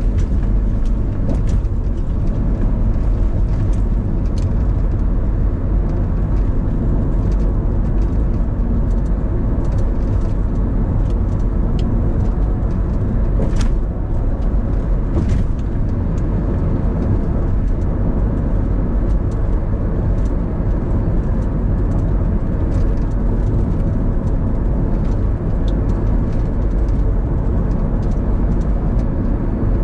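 A car driving on a road, heard from a dash cam inside it: a steady low rumble of road and engine noise, with a few faint clicks.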